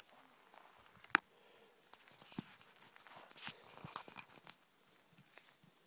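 Faint handling noise close to the microphone: one sharp click about a second in, then scattered rustles and scrapes.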